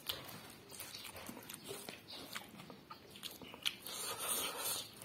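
Someone chewing and biting smoked pork intestine close to the microphone: wet mouth sounds with many small clicks and crunches.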